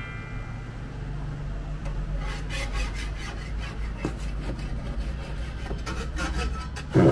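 A long metal blade drawn back and forth through a large slab of sponge cake against a metal cutting guide, making scraping, rasping strokes over a steady low hum. A loud thump near the end.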